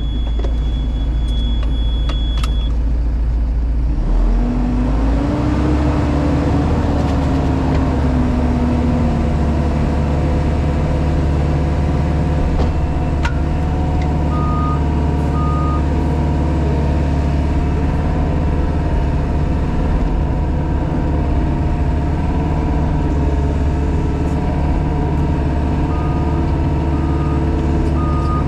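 JCB Pothole Pro's diesel engine and hydraulics running steadily, heard from inside the cab. The engine picks up about four seconds in, with a whine that rises and then falls away. A reversing alarm beeps in short repeated beeps about halfway through and again near the end.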